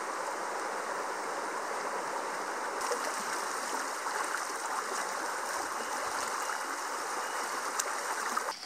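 Steady rushing of river rapids, fast water pouring over stones. It cuts off abruptly near the end.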